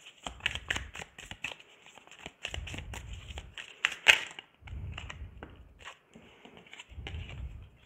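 A Spirit Song Tarot deck shuffled by hand: crisp card clicks and riffles in several bursts, with dull handling bumps, and a sharper snap about four seconds in.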